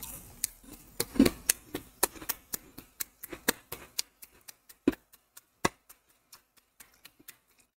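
A string of small, sharp clicks and light taps, several a second at first and then thinning out, with two louder knocks about five seconds in.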